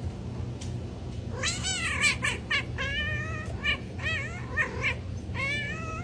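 A cat meowing over and over: a long wavering call, then a quick series of short, high, rising-and-falling meows, over a steady low hum.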